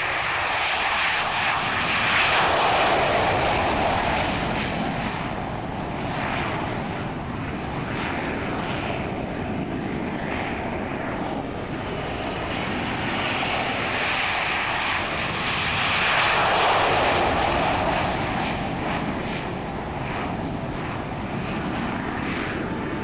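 Aircraft engines running loudly, swelling louder about two seconds in and again about sixteen seconds in.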